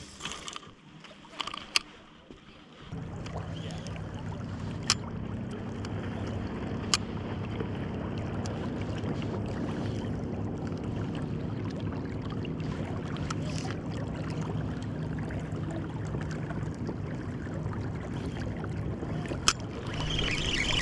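Steady rush of river water with a low hum, starting about three seconds in, broken by a few sharp clicks; the noise grows louder near the end.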